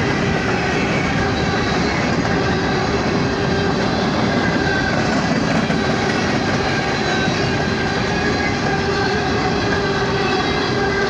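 BNSF empty coal train rolling past at a steady pace: steel wheels on the rails, a loud even rumble with a few thin held tones over it.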